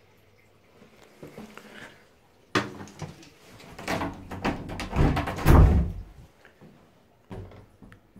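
Wooden toilet cubicle door being handled and opened: a sharp click, then a run of knocks and heavy thumps lasting about three seconds, and one more short knock near the end.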